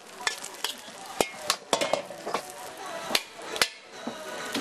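Metal spatula and ladle clanking and scraping against woks in quick, irregular knocks, over the sizzle of food frying.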